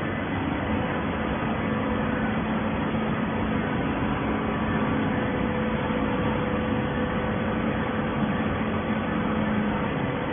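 Automatic horizontal hydraulic baler running steadily: a constant machine noise with a low hum and a fainter higher tone, as the press pushes compressed bales out of its chamber.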